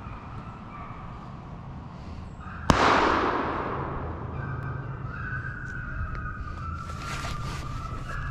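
A single close shotgun shot about two and a half seconds in, fired at a deer, its report dying away over the following second or so.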